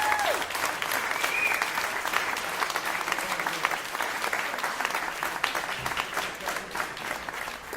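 Audience applauding at the end of a live acoustic jazz performance, with a brief cheer in the first second and a half. The applause thins out slightly near the end.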